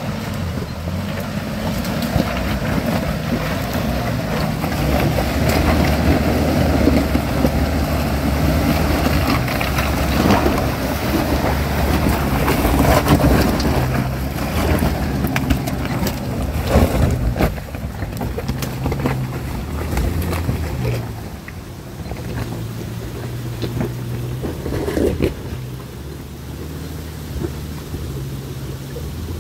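Nissan Pathfinder R51's engine running at low revs, its pitch stepping up and down as it pulls the SUV over a rocky track. Mud-terrain tyres crunch and knock on the rocks. It is louder through the first half and eases off a little past the middle.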